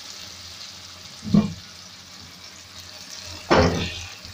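Tomatoes, carrot and radish sizzling steadily in oil in a metal pan on a medium flame, with a spatula scraping through them twice, about a second in and again, louder, near the end.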